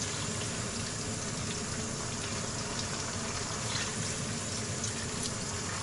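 Hot oil sizzling steadily in a kazan, with faint scattered crackles.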